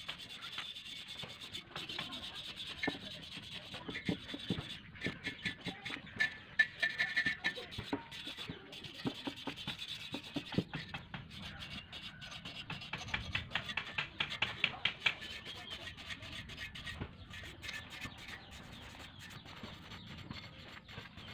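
Hand wire brush scrubbing the metal muffler of a Yamaha Mio i125 exhaust in quick back-and-forth strokes. This is the steady scratchy rasp of brushing off old paint and rust before repainting.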